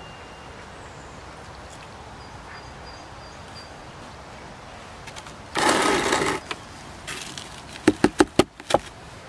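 Fingers tapping about five times in quick succession on a thin sheet of ice frozen over water in a plastic bucket, near the end. A second or two before that comes a brief loud rustle.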